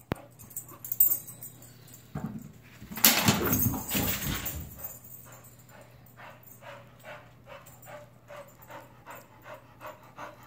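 iFetch Too automatic ball launcher firing a tennis ball, a loud whirring burst about three seconds in, then a dog panting in a steady rhythm as she fetches the ball back.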